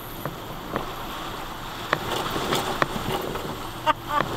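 A 2010 Toyota FJ Cruiser creeping through standing water at walking pace: water sloshing and splashing around the tyres and underbody, with a handful of sharp knocks and clunks as it rolls over the uneven bottom, the loudest near the end.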